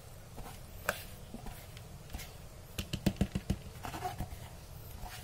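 Plastic container knocked and scraped against the rim of a plastic mixing bowl while grated carrot is pushed out of it by hand, with a quick run of sharp taps about three seconds in.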